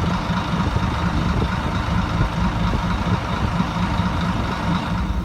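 Fishing boat's engine running steadily, a low drone with a faint high whine over it.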